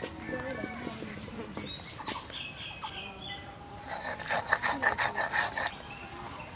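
Chickens clucking with small birds chirping, and a louder run of rapid clucking about four seconds in.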